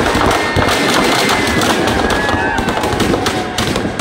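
Firecrackers packed inside a burning Ravana effigy going off in a rapid, continuous rattle of bangs, with thin whistling tones above it.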